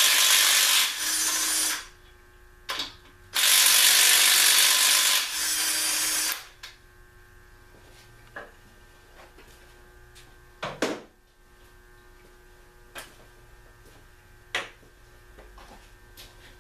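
Cordless impact wrench hammering on the flywheel bolts of an engine on a stand. There are two bursts of rattling hammering, each about two seconds long, and each trails off into a shorter, lighter run. After them come a few scattered light metallic clinks and knocks.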